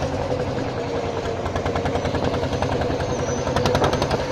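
Engine of a wooden river boat running steadily under way, with a rapid, even pulse of about ten beats a second.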